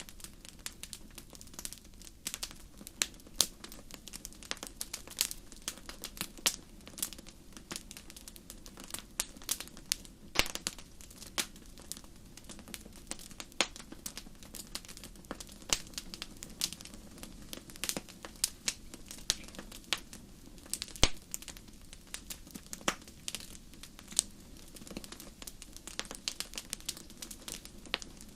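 Wood fire crackling: irregular sharp pops and snaps, several a second, over a low steady background.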